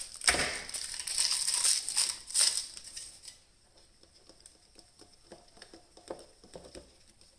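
Stirring a cup of blended taro milk tea with tapioca pearls: a rapid clattering rattle for about three seconds, then fainter scattered clicks.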